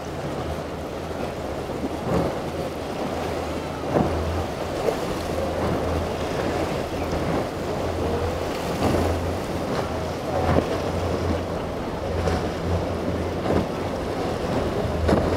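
Outboard-powered boat running through choppy waves: a steady low engine drone under the rush of water, with the hull slapping into waves and throwing spray every second or two. Wind buffets the microphone.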